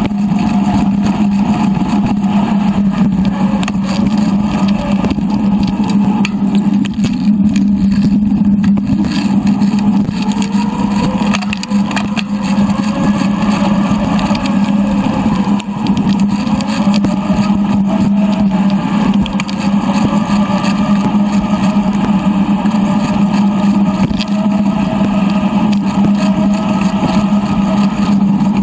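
Bicycle ride noise of wind and tyres on the path, played back three times faster, so it comes out as a steady motor-like drone with slowly wavering higher tones over it.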